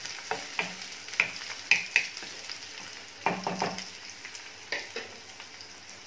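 Wooden spatula scraping and knocking against a steel kadhai while chopped onions are stirred in hot oil, over a steady sizzle. The onions are frying soft in a tempering of mustard seeds, green chillies and curry leaves. The knocks come irregularly and thin out near the end, leaving a softer sizzle.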